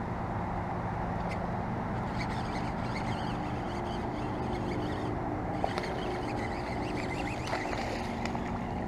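Steady low rumble of road traffic, with a few faint clicks about halfway through and near the end.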